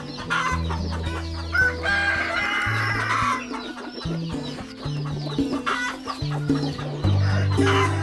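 Flock of Black Australorp chickens clucking, with a rooster crowing, over background music with held bass notes.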